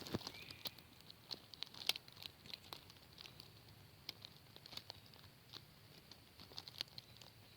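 Faint, irregular crackling and clicking: handling noise from the camera being moved around, not sound made by the ants.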